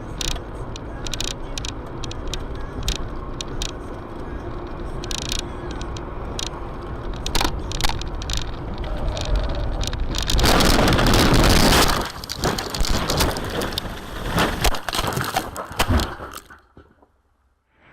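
Car interior road noise on a dashcam, with frequent sharp clicks and knocks. About ten seconds in there is a much louder burst of noise lasting nearly two seconds, followed by more knocks. The sound then fades out near the end.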